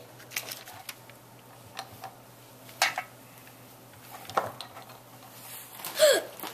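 Light clicks and taps of square pretzels and chocolate kisses being set down on a parchment-lined baking pan, with a sharper knock about three seconds in. A brief falling voice sound comes near the end.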